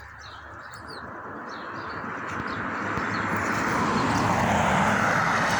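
A vehicle passing by, its road and engine noise swelling over several seconds and starting to fade near the end, with birds chirping during the first couple of seconds.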